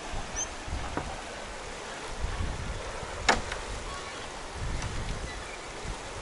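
Shallow mountain river running over a stony bed: a steady rushing hiss, with gusts of wind rumbling on the microphone and one sharp click about three seconds in.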